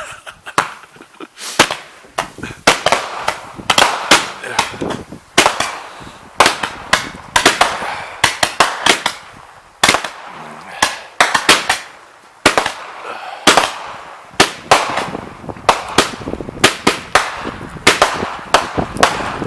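Consumer firework cake firing a long run of sharp bangs, about two a second, with crackle and hiss between the shots.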